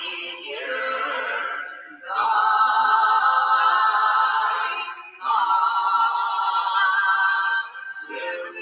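Choral music: a choir singing long held chords, with short breaks about two and five seconds in and a softer, lower passage near the end.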